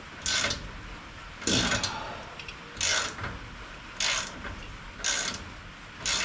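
Socket ratchet wrench clicking in six short bursts about a second apart, one with each return swing of the handle, as a stiff, rusty bolt is worked loose.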